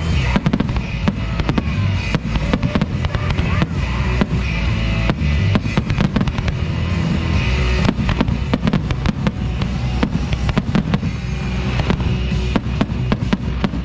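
Aerial fireworks going off in quick succession: a dense run of sharp bangs and crackles over a continuous low rumble, with music playing underneath.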